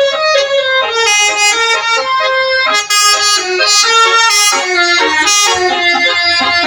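Bus 'telolet' horn, a set of musical air horns, playing a tune of quick stepped notes with several tones sounding together.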